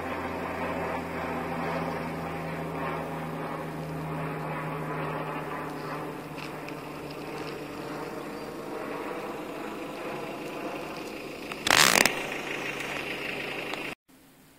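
Vehicle engine running steadily, heard from on board, with road and rattle noise while driving over a rough dirt track. A sudden loud bang lasts about half a second near the end, then the sound cuts off to a much quieter background.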